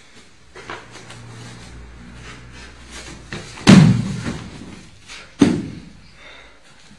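A person is thrown onto a padded martial-arts mat and lands with a loud thud and breakfall slap about three and a half seconds in. A second, slightly softer thump follows under two seconds later as the grappling goes on, with fainter scuffs of feet and cloth around it.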